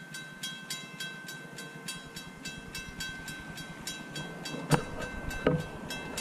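Railroad grade-crossing bell ringing in a steady, even rhythm as a train approaches, with a low rumble building from about four seconds in. Two knocks come near the end.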